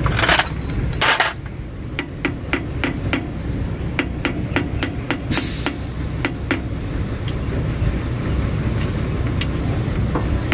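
A hammer tapping a screwdriver driven against a wheel hub's metal dust cap to pry it off: a run of sharp metal taps, about three a second at first, then slower and irregular.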